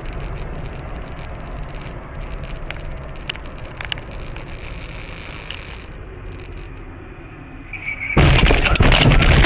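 Steady road and engine noise inside a moving car, with a few faint ticks. About eight seconds in, a sudden loud crash of impact and breaking sounds cuts in and runs for over a second: a vehicle collision.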